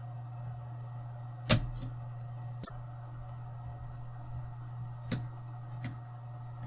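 Four sharp clicks and taps of a small Phillips screwdriver against the plastic of a laptop's screen assembly, the loudest about one and a half seconds in, over a steady low hum.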